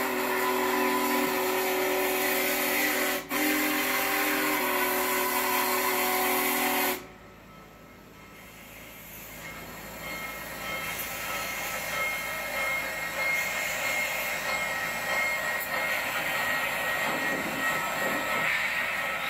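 Steam whistle of Union Pacific 4014 Big Boy steam locomotive blowing a long chord of several tones, broken once briefly about three seconds in and stopping suddenly about seven seconds in. After it comes the steady noise of the locomotive running past, growing louder.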